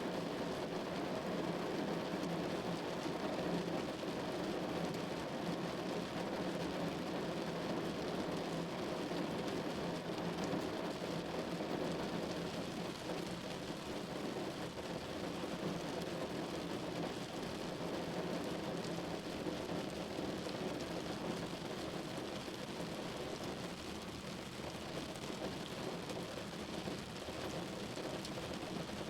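Steady rain falling, an even continuous patter.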